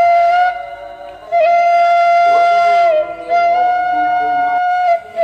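Background music: a flute-like wind instrument playing long held notes with slight bends, breaking off briefly about a second in.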